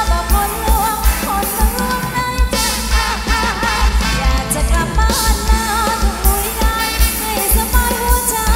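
Thai ramwong dance song played loud through large PA speakers: a singer's wavering melody over a band with a heavy, steady bass beat and recurring cymbal crashes.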